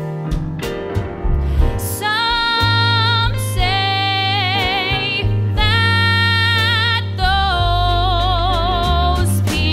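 Female singer holding long high notes with vibrato, several in a row from about two seconds in, over a live band of keyboard, guitar, bass and drums playing a musical-theatre song.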